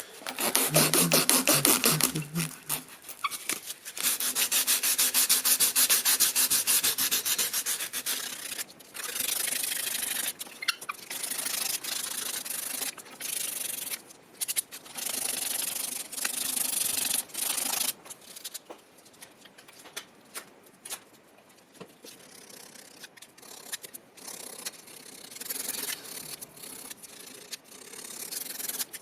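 Hand sanding of a rusty hand drill part: rapid, regular back-and-forth rubbing strokes at first, then irregular bursts with short pauses that grow quieter in the second half.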